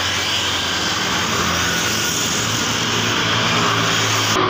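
Road traffic passing close by: several motor scooters going past, their small engines and tyre noise blending into a steady rush.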